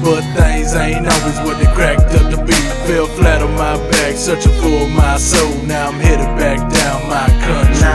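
Background music with a deep bass beat and drums.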